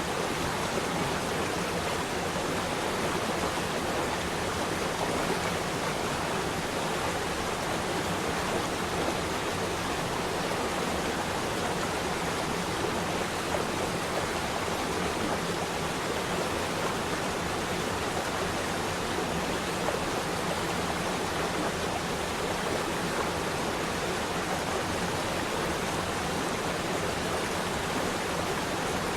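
Flowing water rushing steadily, a continuous even wash with no breaks.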